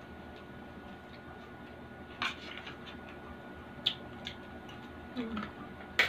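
Open-mouthed chewing of crispy pork sisig: a few sharp crunches spaced irregularly, the loudest near the end.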